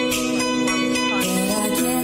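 Background music track with sustained pitched notes and melodic lines.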